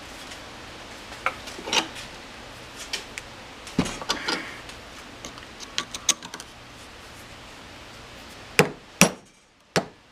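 A hammer tapping a flat screwdriver against a stuck U-joint retaining clip in a driveshaft yoke held in a vise. Light metal clinks and scrapes come first, then three sharp metal strikes near the end as the clip is driven loose.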